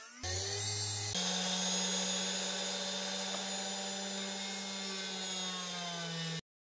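Washing-machine motor running steadily, spinning a wooden pulley on its shaft while a chisel is held against it to turn it down: a steady motor hum under a continuous dry scraping of the blade on the wood. The sound jumps to a different hum about a second in and cuts off suddenly near the end.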